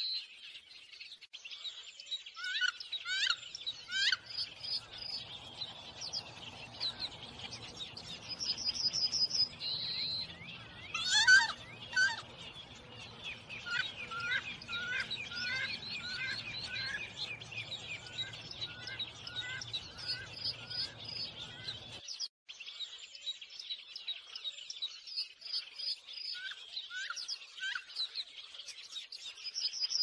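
A chorus of small songbirds chirping and singing, with overlapping calls, quick sweeps and short repeated trills. A faint low rumble runs under the first part and cuts off abruptly about two-thirds of the way in.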